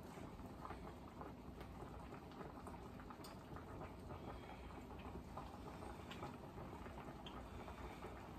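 Pot of crabs and vegetables in coconut milk simmering faintly on the stove, with a light click about three seconds in.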